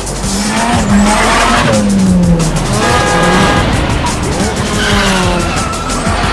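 Dubbed drift-car sound effects: a car engine revving up and falling back several times, with tyre squeal, over background music.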